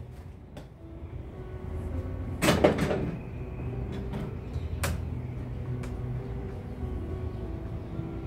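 Golf club and golf balls knocking on the hitting mat of an indoor golf simulator: a cluster of knocks and rattles about two and a half seconds in, then a single sharp click near five seconds, over a steady low hum.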